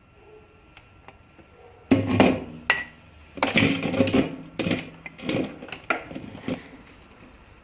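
A run of knocks and clatters, as of hard plastic and metal parts being handled and set down, loudest about two seconds in and dying away after about six and a half seconds. The vacuum motor is not running.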